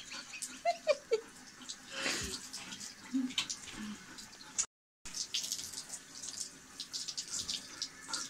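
Water from a handheld shower head spraying onto a wet dog's coat and splashing in a bathtub. The sound cuts out for a moment near the middle.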